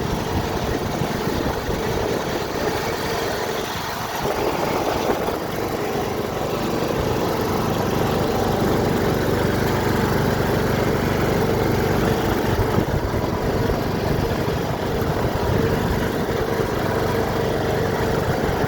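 Riding lawn mower engine running steadily at an even pitch and level.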